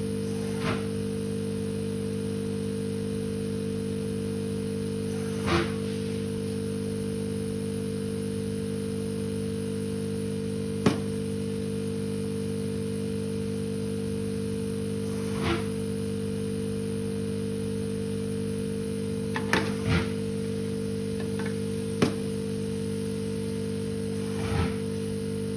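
Steady electrical mains hum made of several fixed tones, with about eight light clicks and taps scattered through it, two close together about twenty seconds in.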